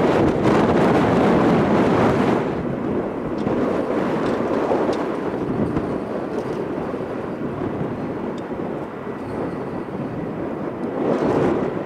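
Airbus A320 jet engines: loud, full-range jet noise as the airliner rolls along the runway, dropping after about two and a half seconds to a steadier, quieter jet-engine noise as it taxis at low power, swelling again near the end.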